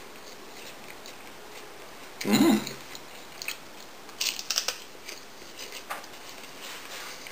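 A short hummed "mmm", then a crispy seaweed chip bitten into: a few sharp crunches a little after four seconds in, followed by lighter chewing clicks.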